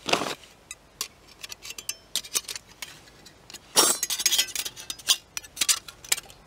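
Thin metal plates of a flat-pack folding camp stove clicking and clinking as they are slotted together by hand. Two longer scraping sounds come at the start and about four seconds in.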